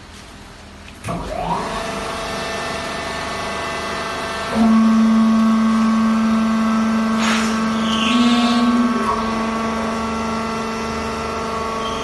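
Vertical hydraulic baler's electric motor and hydraulic pump starting about a second in with a brief rising whine, then running steadily. From about four and a half seconds a louder steady hum joins for about four seconds, then drops away as the machine keeps running.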